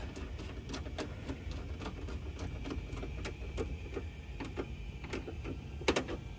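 Hand ratchet with an 11/32-inch socket tightening the bracket's small flange bolt, its pawl clicking in short irregular runs as the handle swings back, with a louder double click near the end.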